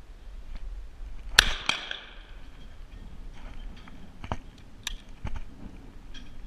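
Rizzini BR-550 20-gauge side-by-side shotgun firing both barrels, two shots about a third of a second apart with a ringing tail. A few sharp clicks follow a few seconds later.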